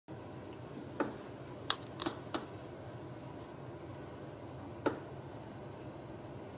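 Five light, sharp clicks or taps, four in the first two and a half seconds and one more near the end, over a steady low hiss.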